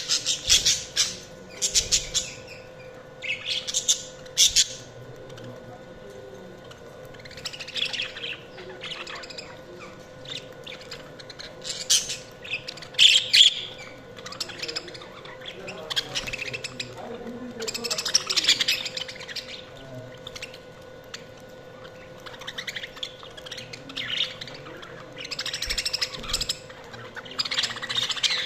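Budgerigars chirping, calls coming in repeated bursts of quick, high notes with quieter chatter between.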